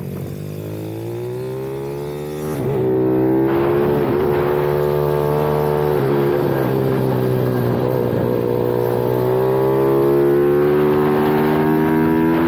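A 155 cc pit bike's single-cylinder engine under load, heard from on the bike while lapping. It revs up over the first few seconds, then holds high with a few brief dips in pitch as the throttle is eased and reopened.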